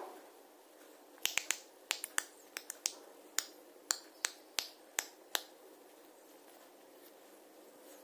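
Indian ringneck parakeet making a quick, irregular series of sharp clicks, about fifteen over four seconds, which then stop.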